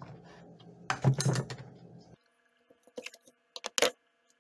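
Short clicks, scrapes and clinks of a kitchen knife and a metal baking pan being handled while bologna is cut for the meatloaf, loudest about a second in. A few sharp clicks come near the end over a faint steady hum.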